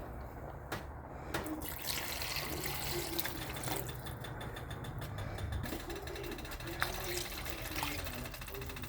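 Water pouring steadily into a cooking pot, with a few light clicks.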